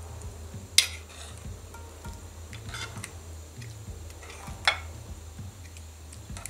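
A metal ladle clinking against the pot and a ceramic bowl while offal is lifted out of the soup, with two sharp clinks, about a second in and just before five seconds, over soft background music.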